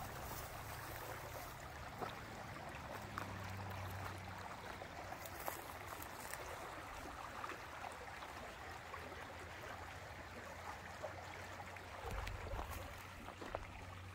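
Water rushing steadily along an open, gravity-fed concrete-lined canal.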